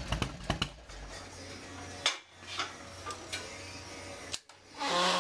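Scattered sharp clicks and metallic clinks, several close together at the start and one about two seconds in, over a steady low hum.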